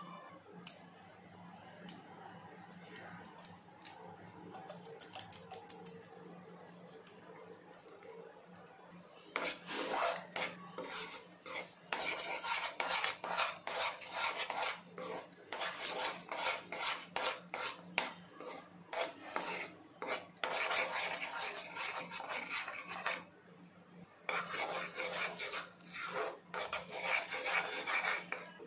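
A spatula scrapes and stirs a thick gram-flour (besan) and ghee paste around a coated kadai in quick, repeated rasping strokes. The strokes start about a third of the way in and pause briefly near the end. Before them come a few light clicks and taps.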